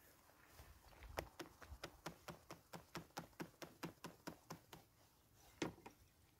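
A faint run of quick, evenly spaced clicks, about four or five a second for some four seconds, then one louder click, from something small being worked by hand at a table.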